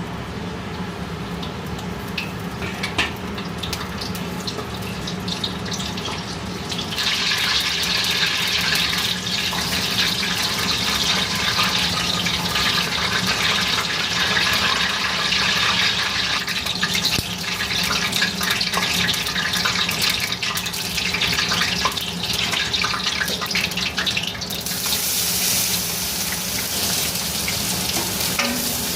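Kitchen tap water running into a sink, turned on about a quarter of the way in, over a steady low hum; near the end the hiss turns brighter and hissier.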